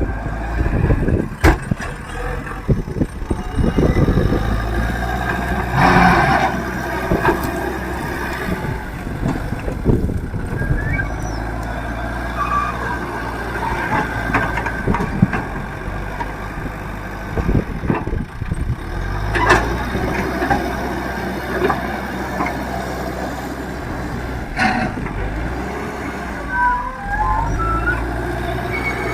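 Leyland Deere 435 backhoe loader's diesel engine running under load while leveling earth, its pitch rising and falling with the work. A few sharp knocks stand out, one near the start and others about 6, 20 and 25 seconds in.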